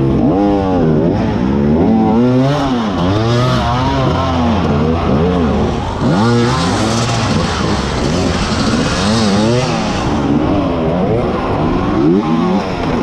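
Beta enduro motorcycle engine revved in repeated short throttle bursts, its pitch rising and falling with each one, as the bike is forced over rocks and old tyres while stuck on the obstacle.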